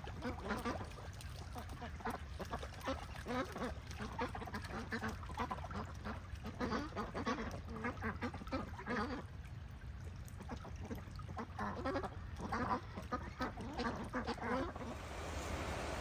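A flock of ducks, mallards among them, quacking again and again in short calls. Near the end the quacking stops and the steady rush of floodwater takes over.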